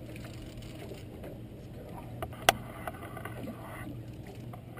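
Suzuki 250 outboard motor running at idle, a steady low hum, with one sharp click about halfway through.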